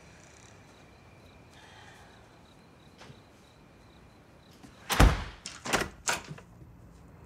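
Faint steady background, then about five seconds in a heavy door shuts with a loud thud, followed by a few sharp latch clicks.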